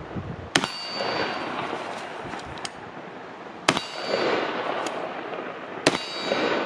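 Three rifle shots a few seconds apart, each followed by the ringing clang of a steel target being hit, with the rustle of the shooter moving between shots.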